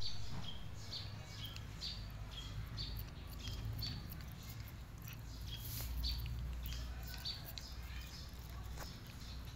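A cat biting and chewing grilled chicken pieces off a wooden skewer. A run of short high chirps, about two a second, sounds over a steady low rumble.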